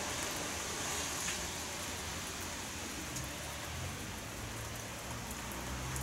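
Steady rain falling, an even hiss with scattered faint ticks. A low hum comes up about halfway through.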